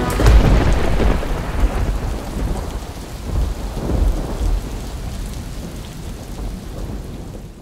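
A deep rolling rumble, loudest in its first second, swelling again a few times and slowly dying away, over a steady hiss.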